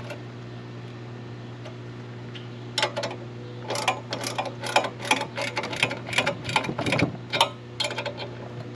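Ratchet wrench clicking in quick, irregular runs as the U-bolt nuts on a chainsaw mill's height posts are tightened; it starts about three seconds in.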